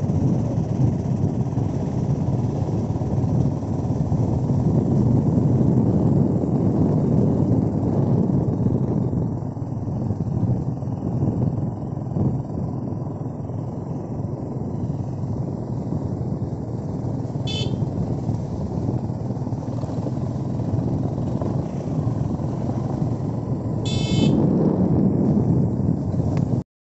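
Steady rumble of a road vehicle on the move, engine and road noise with no clear pitch, broken by a short horn toot about two-thirds of the way in and another near the end.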